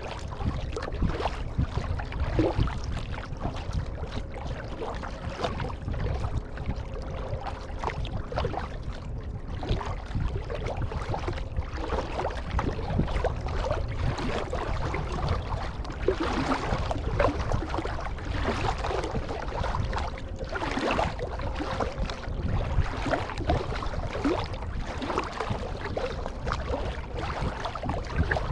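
Water splashing and dripping from kayak paddle strokes over a steady low rumble, the splashing louder just past the halfway point.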